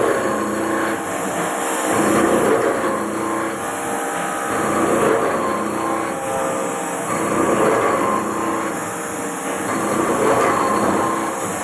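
Haas CNC machine running and cutting metal: a steady mechanical noise with several held tones that swell and ease about every two to three seconds.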